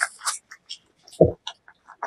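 Close-miked mouth sounds: a quick series of small clicks and smacks from the lips and mouth. A louder dull thump comes a little over a second in.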